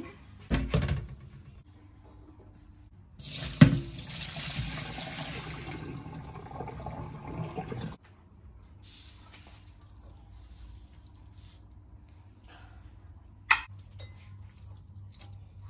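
Water running into a sink for about five seconds, then cutting off abruptly, with a sharp knock just as it starts. A couple of thuds come shortly before it.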